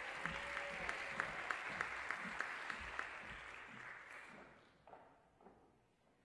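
Audience applause in an auditorium, with one person's claps standing out at about three a second. The applause dies away after about four seconds.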